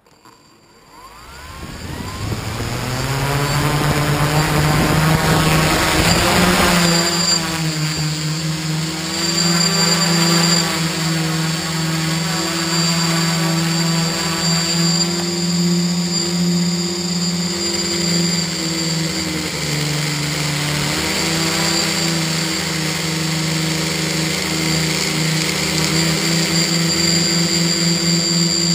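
Tricopter's electric motors and propellers spinning up from rest over the first two seconds or so, rising in pitch. They then settle into a steady buzz that shifts a little in pitch with the throttle, with a thin high whine above it.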